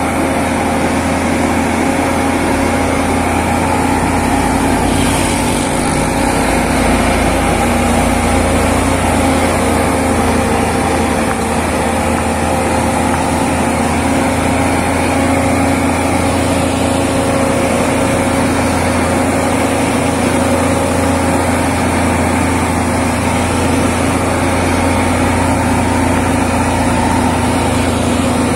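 Volvo FM12 truck's diesel engine running steadily at a slow crawl under a very heavy load, a transformer of about 98 tons. It makes an even, unbroken engine hum with no revving or gear changes.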